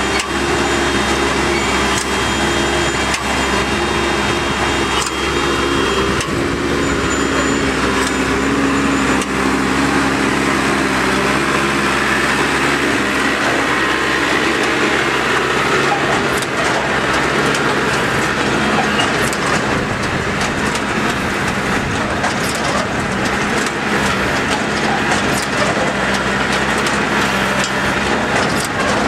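Tractor-drawn automatic turf harvester at work: the tractor's diesel engine running steadily under the continual rattling and knocking of the harvester's cutting, conveying and stacking mechanism.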